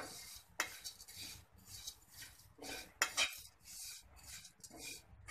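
A spatula stirring and scraping flattened rice (poha) round a non-stick kadhai, in an irregular run of short rasping strokes with a sharper clack of spatula on pan about three seconds in. The dry rustle of the flakes is the sign that the poha have roasted crisp.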